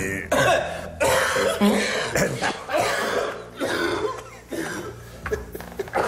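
A man in a coughing fit: a rapid string of harsh, hacking coughs, one after another, easing a little after about four and a half seconds.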